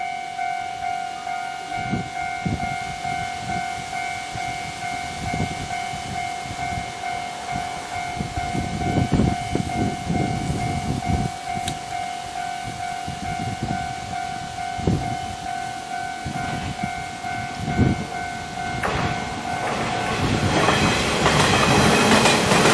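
Japanese level-crossing warning bell ringing its steady, repeating clang while an electric commuter train's wheels thump over the rail joints. Near the end a louder rushing noise builds as a train passes close by.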